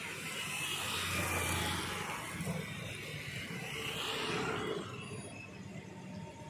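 Passenger train coaches rolling slowly over station points and crossings: a steady rumble of wheels on rail that swells about a second in and again around four seconds.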